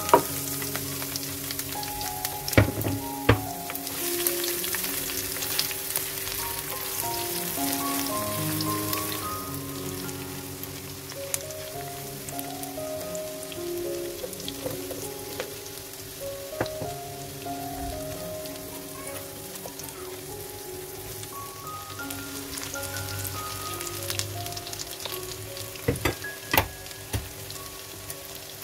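Sliced shallots, garlic and spring onion sizzling as they sauté in hot oil in a nonstick frying pan, loudest in the first several seconds, with a few sharp knocks of utensils against the pan. Background music plays underneath.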